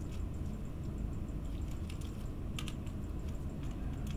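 Light clicks and taps from a tiny screwdriver turning small screws in a clear acrylic model kit, held in gloved hands, a few sharp clicks near the middle over a steady low hum.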